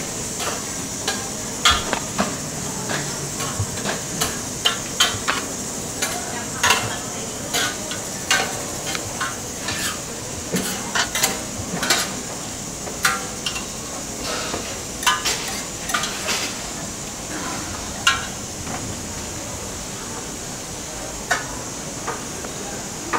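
Kitchen utensil work as a burrito is filled: irregular clicks, taps and scrapes of a plastic serving spoon against food containers and a wooden board, over a steady high hiss. The clicks thin out near the end.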